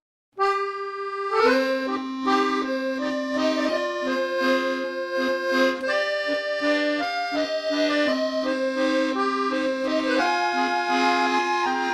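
Background music: a slow melody of long held notes over a sustained lower note, starting about half a second in after a brief silence.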